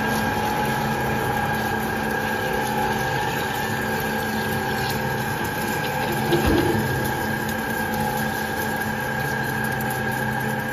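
Two-spindle gantry CNC drilling machine drilling steel plates: a steady machine hum with several held tones over a wash of noise. A brief knock about six and a half seconds in.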